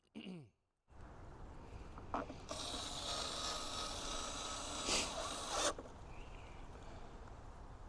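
A rasping scrape lasting about three seconds, with a short knock just before it and two near its end, as something is handled close to the ground.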